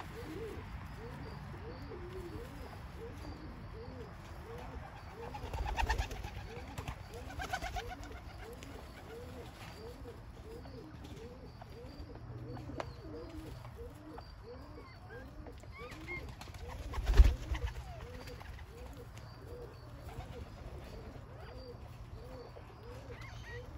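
Snowflake bobwhite quails dust bathing, giving soft, low, repeated calls about two a second. There is some scuffling in the dirt and one sudden loud thump about two-thirds of the way through.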